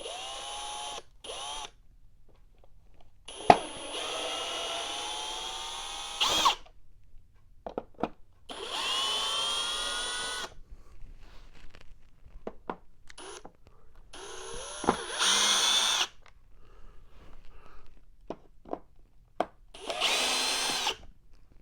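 Power drill-driver backing out the screws of a Bissell Power Force vacuum cleaner's bottom plate: about six short runs of motor whine, each rising in pitch as it spins up, with small clicks in between.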